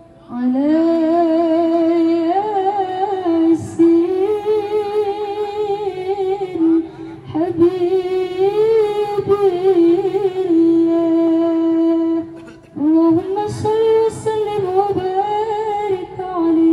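A woman singing a slow melody in long held notes with wavering, ornamented turns, phrase by phrase with short breaths between.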